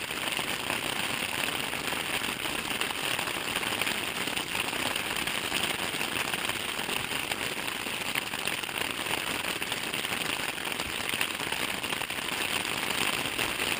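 Rain coming down in a quick downpour, a steady, dense patter of drops on tent fabric.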